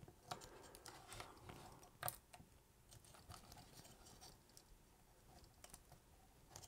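Near silence with faint small clicks and rustles of fingers handling a 35mm SLR's opened top housing as its glass prism is eased out, with one slightly sharper click about two seconds in.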